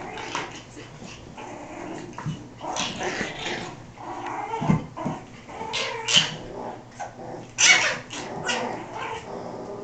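A litter of Yorkshire terrier puppies play-fighting: scattered high yips, little barks and growls at irregular intervals. The louder yips come in the second half.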